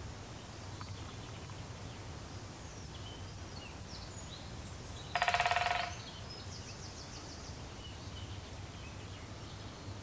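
A woodpecker drumming: one rapid roll of knocks on dead wood, under a second long, about halfway through. Around it are faint bird chirps over a steady low hum.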